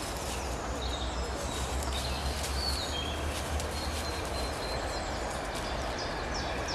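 Garden birds singing, with scattered chirps and a quick run of descending notes near the end, over a steady outdoor background hiss. A low rumble underneath eases off about four and a half seconds in.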